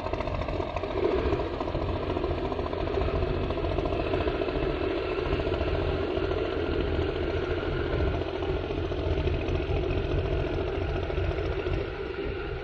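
Small fishing boat's engine running as the boat passes close by, a rough, clattering chug over a low rumble, easing off near the end as the boat moves away.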